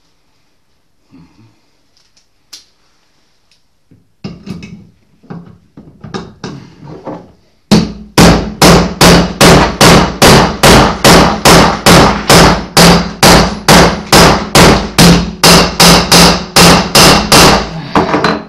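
Hammer blows on a steel drift, driving a new crankshaft ball bearing into a Zündapp engine case half. A few lighter taps come first, then from about 8 seconds in a long run of hard, even blows, about three a second, which stops near the end.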